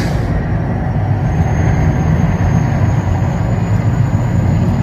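Deep, loud, continuous rumble of the Mirage volcano show, with the hiss of its gas flame burst dying away in the first moment.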